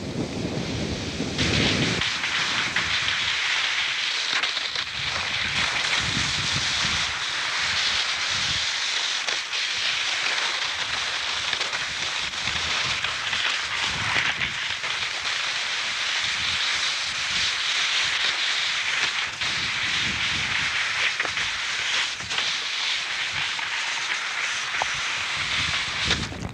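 Steady rushing hiss of skis sliding over corn snow and wind on the microphone, with uneven low gusts buffeting throughout.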